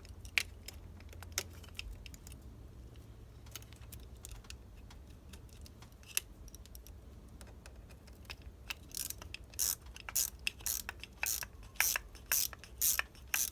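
Hand ratchet wrench clicking: a few scattered light clicks at first, then from about nine seconds in an even run of sharp clicks, roughly two to three a second.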